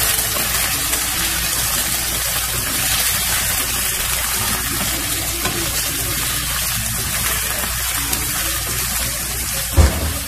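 Boiled fenugreek leaves and potato cubes sizzling in hot oil in a non-stick pan as they are stirred with a wooden spatula: a steady hiss, with a single low thump near the end.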